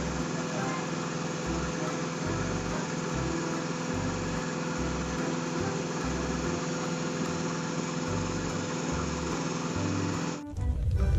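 Concrete mixer truck's diesel engine running steadily, turning the drum as it discharges concrete down the chute. The sound cuts off abruptly near the end and a louder low rumble takes over.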